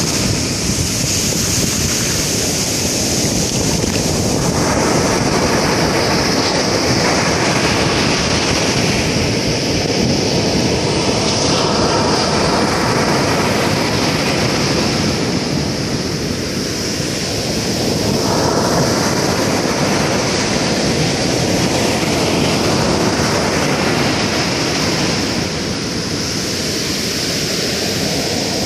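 Rough sea surf breaking on a sandy beach: a loud, continuous rushing wash that swells and eases as each wave breaks and runs up the sand every several seconds.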